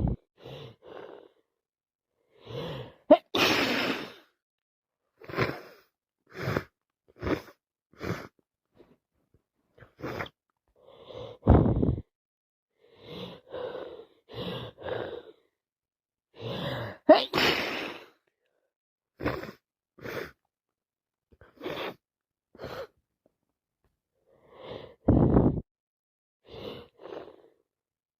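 A woman with a head cold sneezing twice, about three seconds in and again about seventeen seconds in, each sneeze led in by short gasping breaths. Short sniffs and breaths between.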